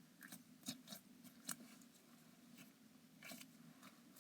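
Near silence with faint, scattered clicks and rustles of a rubbery needle stress ball being handled and squeezed in the hands.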